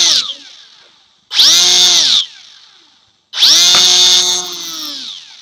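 WLtoys F949 Cessna RC plane's electric motor given short bursts of throttle: a high whine that spins up fast, holds for about a second and winds down, twice, with the tail of an earlier run dying away at the start. The second run drops to a lower speed partway before stopping. The repaired speed controller (ESC) is controlling the throttle again.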